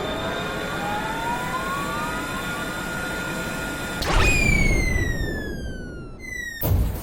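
Synthesized sci-fi sound effects for an animated UFO: several tones rising slowly together over a steady rumble. About four seconds in, a sudden loud blast is followed by tones sliding down and fading, and a short loud burst comes near the end.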